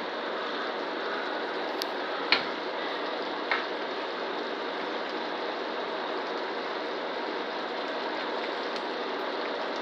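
Chicken and shrimp in a thick cream sauce bubbling and sizzling steadily in an electric skillet, with two sharp clicks, the first a little over two seconds in and the second about three and a half seconds in.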